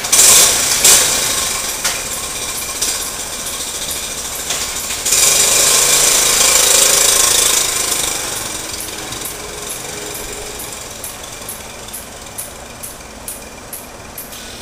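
Small Honda Trail 110 motorbike engine running and revving as the bike pulls away, then fading steadily as it rides off into the distance.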